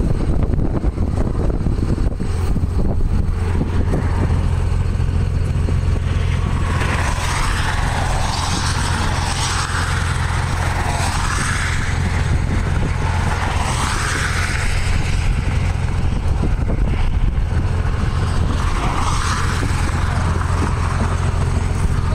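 Steady low rumble of a running vehicle engine. From about a third of the way in, a fainter higher sound wavers up and down over it.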